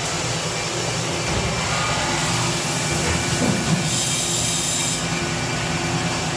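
Doosan HP-4000 horizontal machining center running, heard through its closed enclosure: a steady machine hum with a hiss of coolant spraying inside.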